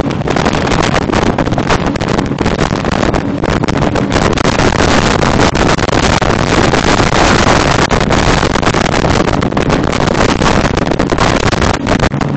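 Wind buffeting a phone microphone aboard a RIB boat at speed: a loud, dense rush with constant crackling gusts that masks the boat's engine.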